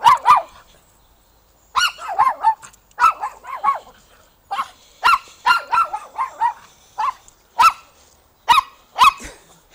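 Pomeranian barking: high, sharp yaps in quick bursts of two to four, with short pauses between. This is reactive barking at another dog nearby.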